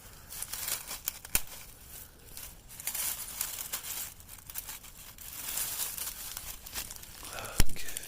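Crunching and rustling of footsteps and movement through ground vegetation, with scattered small clicks and a sharp click near the end that is the loudest sound.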